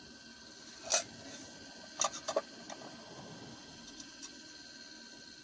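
A few light clicks and taps over faint steady room hum: one sharp click about a second in, then a quick cluster of three around two seconds in, and a few faint ticks later.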